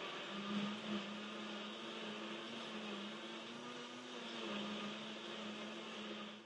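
NutriBullet personal blender running steadily, its motor whirring as it blends apples, baby carrots and juice into a smoothie, held on by the cup pressed down on the base. The whir cuts off suddenly at the very end.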